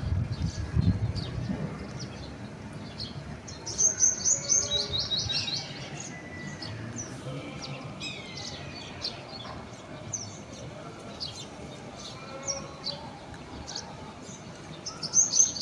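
Birds chirping and singing. A fast descending trilled phrase comes about four seconds in and again near the end, with scattered short chirps between.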